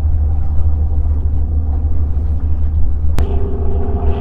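Wind buffeting the microphone, a loud, steady low rumble. About three seconds in there is a sharp click, after which a steady hum of several tones joins the rumble.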